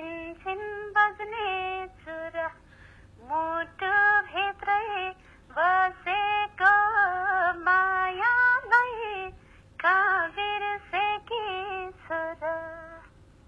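A woman singing a Nepali dohori folk song unaccompanied, played back from a phone voice message, so the sound is thin and band-limited. She sings in short phrases with brief pauses and stops shortly before the end.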